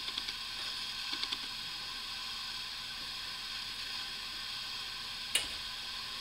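Steady hiss, with a few faint light taps in the first second and one sharp click about five seconds in, as small mitered wood pieces are handled and pressed together on a strip of tape on a wooden workbench.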